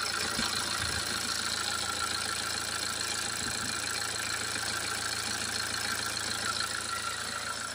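BMW 118d's 2.0-litre four-cylinder turbodiesel idling steadily, heard up close from the open engine bay, with its blocked diesel particulate filter soaked in cleaning fluid.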